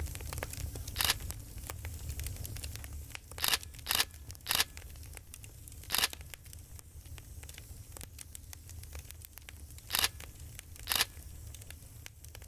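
Seven short, sharp rustling or crackling noises, each lasting a fraction of a second and spread unevenly, over a low rumble that fades after the first few seconds.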